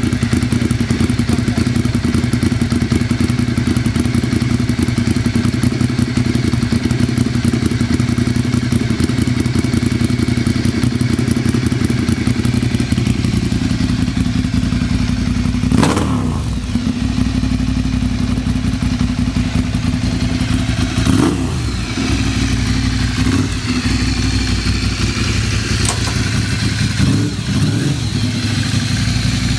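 Ducati Monster 696's air-cooled L-twin engine idling steadily, with a few thumps and clunks in the second half.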